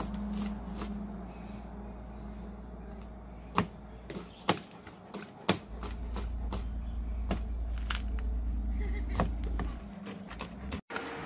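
Irregular knocks and clatter of food preparation, a knife and utensils striking a cutting board and cookware, about a dozen sharp hits spread unevenly, over a low steady rumble.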